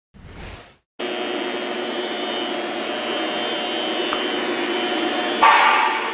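A short whoosh, then a steady mechanical hum of running machinery with several steady tones, starting about a second in. A louder rushing burst about five and a half seconds in fades over half a second.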